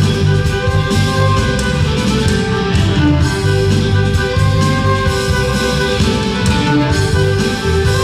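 Live ceilidh band playing a dance tune: fiddle carrying the melody over electric guitars and a drum kit.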